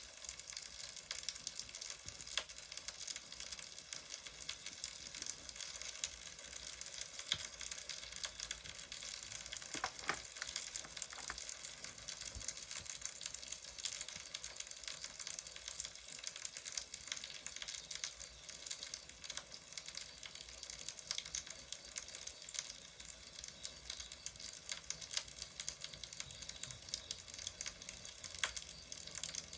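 Wood fire crackling steadily, with scattered sharper pops.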